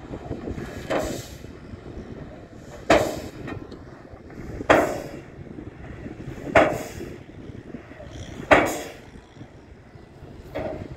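Ten-wheel dump truck tipping a load of soil with its bed raised: a low engine rumble with a sharp bang about every two seconds, six in all, the last one weaker.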